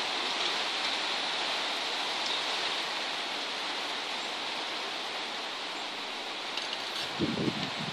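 Steady rain falling, an even hiss. A few soft low thumps near the end.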